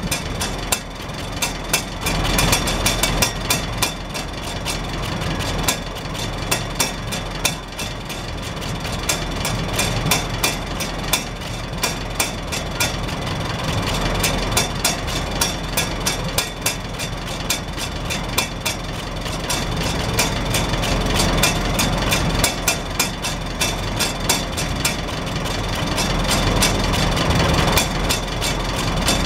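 Farmall Super H tractor's four-cylinder engine idling steadily through a vertical exhaust stack, the hinged flapper rain cap on top clattering rapidly as the exhaust pulses lift it.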